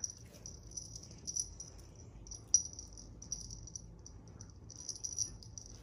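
A small bell jingling in short, irregular shakes, with a sharper jingle about two and a half seconds in and another near the end.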